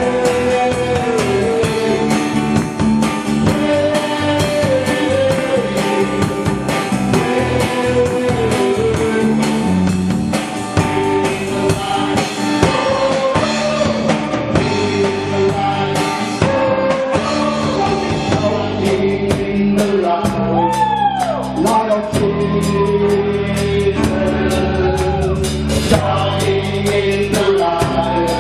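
Live praise-and-worship song by a small band: several male voices singing into microphones over a drum kit and acoustic guitar.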